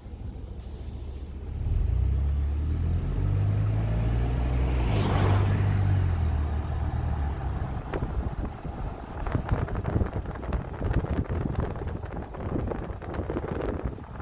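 A motor vehicle passing, its engine rumble swelling and then fading, loudest about five seconds in. In the second half come irregular knocking steps, typical of horse hooves clopping.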